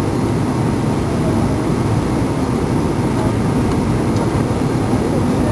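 Steady low rumble of a jet airliner, heard from inside the cabin.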